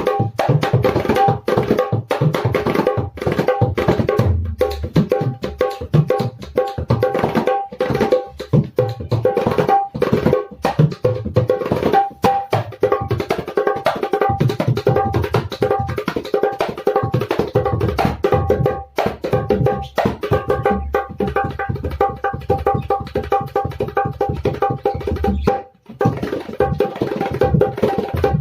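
A new dholak played in a fast, continuous rhythm to check its tone: the tuned treble head rings at a steady pitch while the bass head gives deep strokes. The playing breaks off for a moment about two seconds before the end, then resumes.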